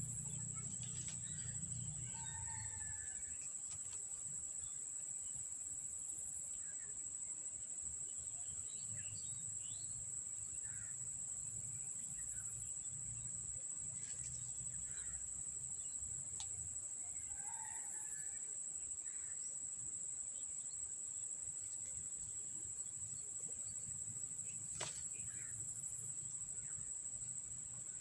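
Steady, high-pitched insect drone with scattered short bird chirps, and a single sharp click about three-quarters of the way through.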